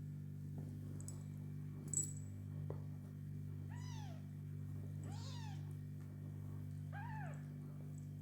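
A kitten meowing three times, short high meows that rise and fall in pitch, over a steady low hum. A sharp click about two seconds in.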